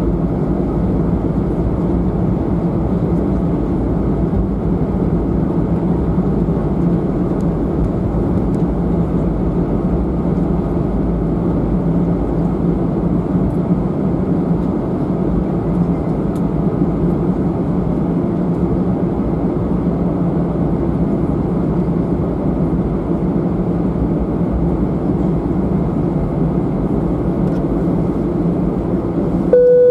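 Steady cabin noise of an Airbus A319-111, its CFM56 jet engines running at low power with a deep hum while the airliner taxis before takeoff. A cabin chime tone starts right at the end.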